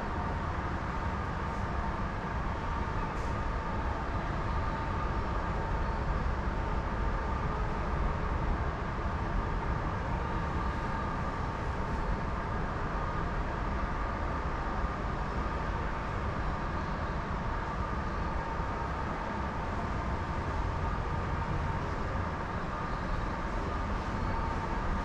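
Steady low rumble and hum of an underground subway platform with no train at it, with two faint steady tones over the rumble.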